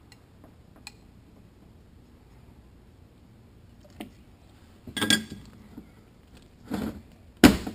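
Clattering knocks of an aluminum transmission part handled on a steel workbench: a cluster about five seconds in, another shortly after, and the loudest, a sharp knock, near the end.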